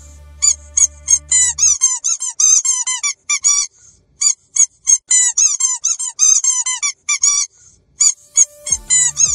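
Squeaky dog toy squeezed over and over in quick runs of about four squeaks a second. Each squeak is a short, high-pitched squeal that bends up and falls. The runs break off twice, briefly, about a third of the way in and again near the end.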